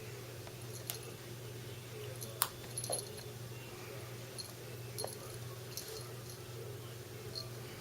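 A few light, sharp clicks and taps scattered over several seconds: a kitten playing with a small plastic toy. Underneath is a steady low hum.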